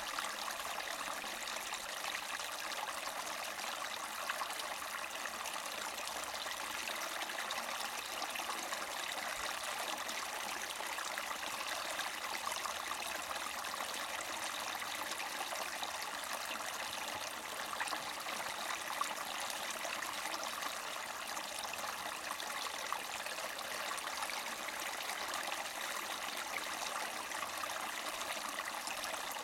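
Small spring-fed mountain brook gurgling and trickling steadily over rocks.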